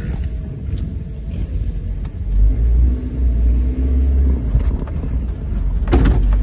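Chevy Tracker's 2.0-litre four-cylinder engine and road rumble heard from inside the cabin as it drives, the low rumble growing louder about two seconds in. A brief knock near the end.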